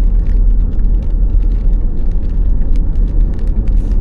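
Road and tyre noise heard inside a moving car's cabin: a steady low rumble.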